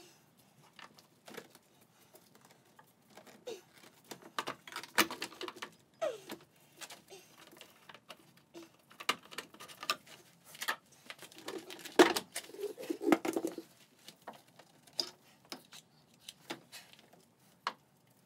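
Scattered clicks, knocks and rattles of plastic and rubber engine parts being handled: the air filter box and intake ducting being unclipped and lifted out of a Mazda RX-8's engine bay. The sharpest knocks come about five and twelve seconds in.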